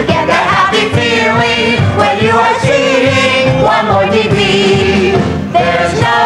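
Music: voices singing a show tune with accompaniment, the held notes wavering with vibrato.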